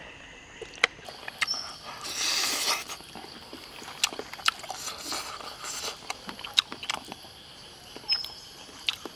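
Close-up eating sounds: lip smacks, chewing and sharp little clicks as a man picks meat off cooked crocodile bones with his fingers, with a louder noisy burst about two seconds in.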